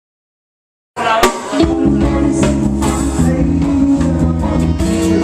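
Live reggae band playing, with bass guitar and a drum kit (Yamaha Rock Tour drums) keeping a steady beat. The music cuts in abruptly about a second in, after complete silence.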